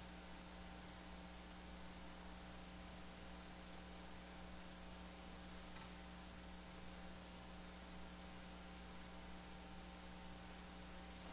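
Steady low electrical mains hum over a faint hiss from the sound system, otherwise near silence.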